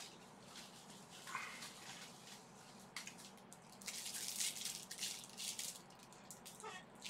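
Close rustling and crinkling handling noises in a series of short scratchy bursts, loudest a little past the middle.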